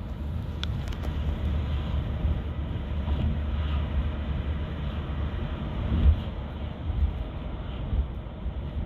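Steady low rumble of a vehicle heard from inside, with a few faint knocks and clicks.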